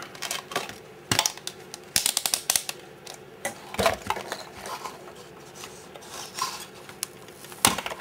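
Irregular clicks and clacks of hard plastic parts and tools being handled on a workbench, loudest near the start, around the middle and just before the end.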